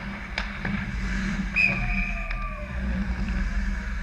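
A referee's whistle blowing once, a steady shrill note of about a second starting a second and a half in, stopping play at the hockey net. Around it a few sharp clacks of sticks and puck on the ice over the steady low rumble of the rink.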